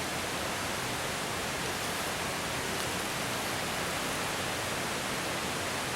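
A steady, even hiss that holds at one level throughout, with no tones or knocks in it.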